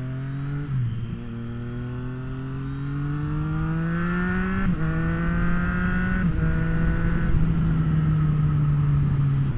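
2024 Triumph Street Triple RS's inline three-cylinder engine through an SC Project S1 exhaust, accelerating through the gears: the revs rise, drop at an upshift about a second in, climb for several seconds, drop at another upshift about halfway through, then hold fairly steady.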